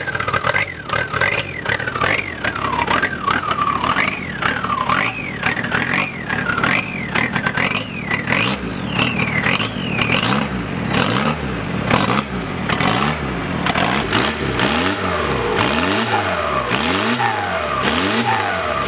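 Cummins diesel engine swapped into a VW Beetle, just cold-started and being revved over and over through its stack exhaust. A high whistle rises and falls with each rev through the first half, and later the revs come as quick regular blips, about three every two seconds.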